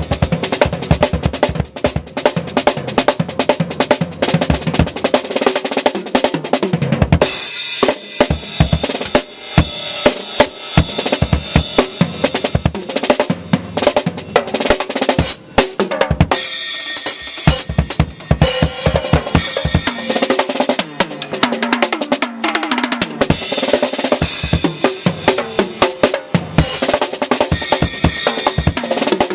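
Acoustic drum kit played solo outdoors: a fast, busy run of bass drum and snare hits with short breaks about 2 and 15 seconds in.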